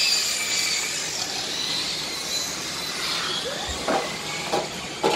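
Radio-controlled model race cars' motors whining as they lap the track, a thin high pitch rising and falling as they accelerate and brake.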